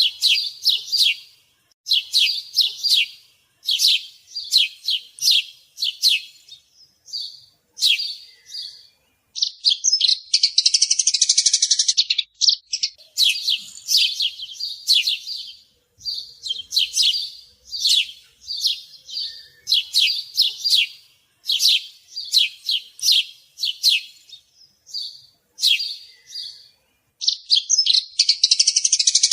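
A small songbird singing: quick runs of sharp, high chirps, broken twice by a long, fast trill, once about ten seconds in and again near the end.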